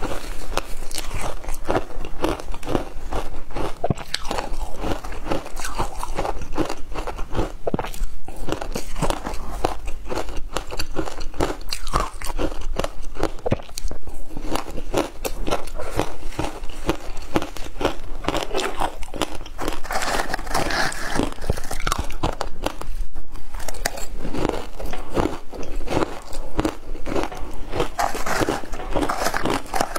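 Frozen fruit ice crunching between teeth: a person biting and chewing pieces of frozen passion fruit ice and shaved ice, in rapid crunches that go on without a break.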